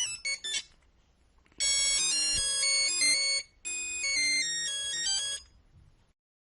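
Nokia 3310 monophonic ringtones: a tune of quick staccato beeps ends, and after a short pause another beeping melody of held notes plays for about four seconds, with a brief break midway, then stops.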